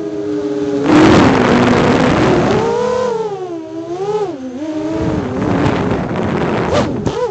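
FPV quadcopter's electric motors and propellers whining, the pitch rising and falling again and again with the throttle, over wind hiss on the onboard microphone. A few sharp knocks near the end.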